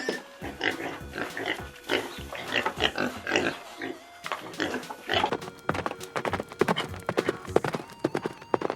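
Pigs grunting for about the first five seconds, then a quick run of sharp clicks and knocks, over faint background music.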